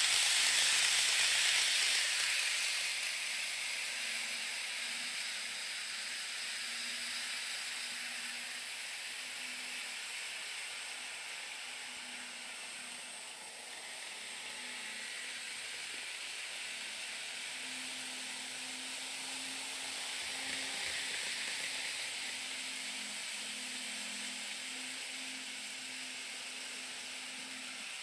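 Model railway train of the Wide View Shinano limited express running past at high speed, its wheels on the rails and its motor making a hissing whir that is loudest in the first two seconds or so. Trains running on the layout keep up a fainter steady rolling hiss, which swells again about two-thirds of the way through.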